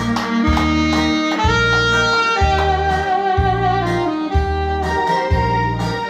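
Instrumental backing track of a Korean trot song playing through a PA during an interlude with no singing: a steady bass note about once a second under long held melody lines.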